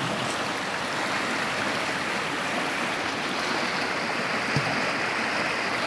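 Muddy, fast-flowing river water rushing steadily past the bank.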